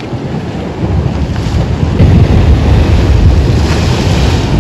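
Ocean waves surging and breaking against a rock ledge, with wind buffeting the microphone. The low rumble of the surf grows louder about a second in and stays strong.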